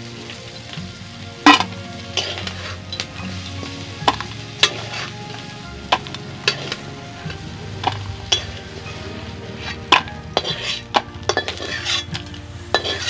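Metal spatula scraping and clanking against a steel wok as fried crabs are scooped out into a steel bowl, over hot oil sizzling in the pan. The clanks come irregularly, the loudest about a second and a half in.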